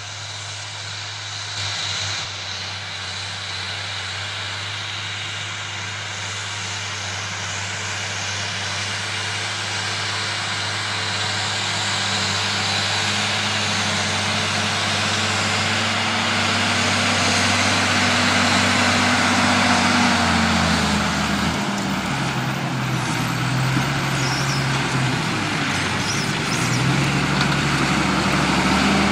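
New Holland 8970 tractor's six-cylinder diesel engine running under load while pulling a seedbed cultivator across tilled soil, growing steadily louder as it comes closer. Its engine note shifts up and down in pitch several times in the last third.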